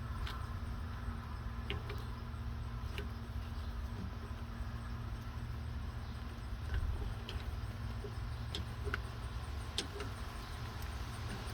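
Scattered light metallic clicks and ticks of hand tools working at a trailer wheel hub, taking out the cotter pin and spindle nut, over a steady low rumble.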